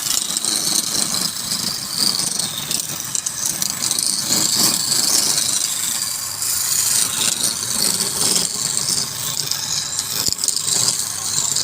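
Wood lathe at work on a spinning workpiece: a steady high hiss with some rattle.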